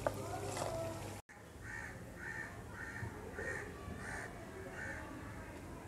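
A bird calling faintly in the background: a run of about seven short, evenly spaced calls, roughly two a second.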